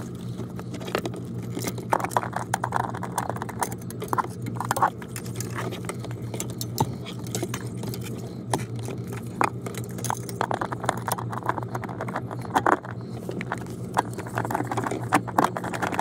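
Scattered small metallic clicks, taps and scrapes of a bolt on a socket and extension being worked into place as it is threaded in by hand, over a steady low hum.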